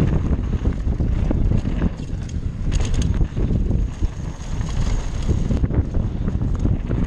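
Wind buffeting the microphone of a body-mounted GoPro on a mountain bike running fast down a dirt trail, mixed with tyre noise on loose dirt and the bike rattling over bumps. A cluster of sharp rattles comes about three seconds in.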